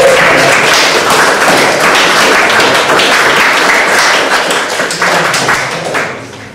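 Audience applauding, a steady dense clapping that dies down near the end.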